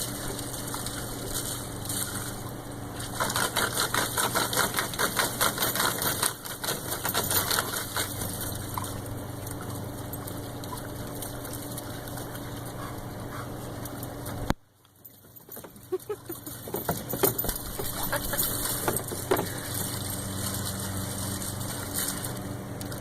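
Water from a garden hose gushing and splashing in a dog's pool, over a steady low hum. The sound drops out suddenly for about a second about two-thirds of the way through.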